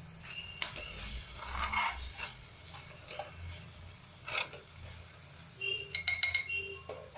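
A metal spoon stirring thick curry in a metal pan, scraping and clinking against the pan in a few sharp, briefly ringing clinks. The loudest clinks come together near the end, over a low steady hum.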